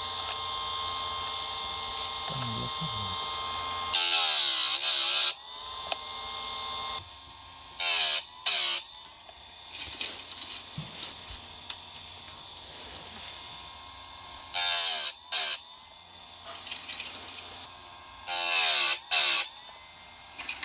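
Small electric sharpening grinder running with a steady whine, broken four times by loud grinding passes about a second long, the motor's pitch sagging and recovering around each pass.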